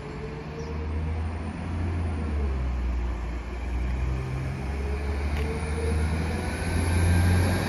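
Northern Class 195 diesel multiple unit running in to the platform: a low engine rumble that grows louder as it approaches, with a faint wavering whine above it.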